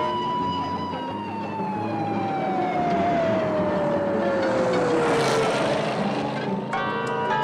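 Police car siren wailing: its pitch holds, falls slowly over about four seconds, then rises back up near the end.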